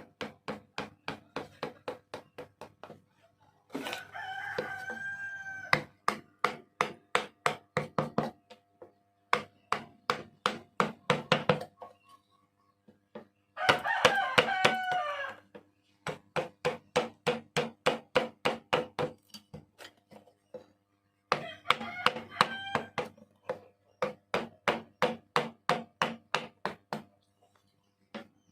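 Runs of rapid, even knocking at about four blows a second, like hammering on wood. A rooster crows three times over it, about four, thirteen and twenty-one seconds in.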